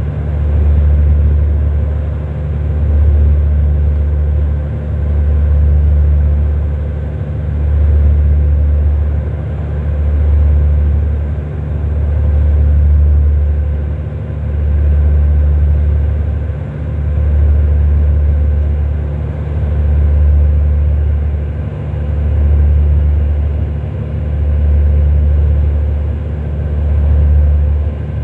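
Low, steady engine drone with a deep hum and a few steady tones above it. It swells and fades evenly about every two seconds, like a ship's diesel engines beating against each other.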